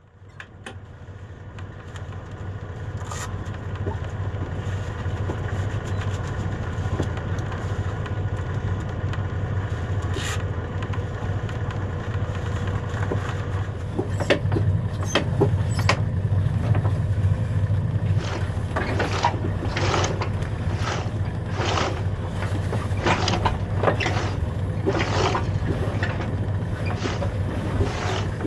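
A sailing yacht's engine running steadily, fading in over the first few seconds. From about halfway, a series of sharp slaps comes roughly once a second over the hum.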